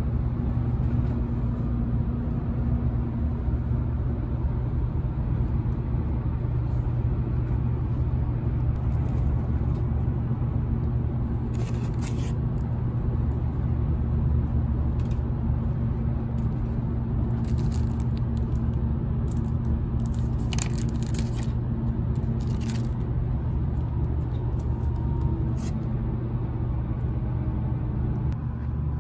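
Steady low rumble and hum of a Meitetsu 1000-series electric train running, heard from inside the passenger car. Several short bursts of crinkling from plastic and paper food wrapping being opened come around the middle.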